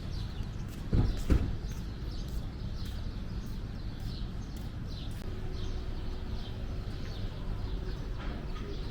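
Birds chirping repeatedly over a low outdoor rumble, with two thumps about a second in that are the loudest sounds. A faint steady hum joins about five seconds in.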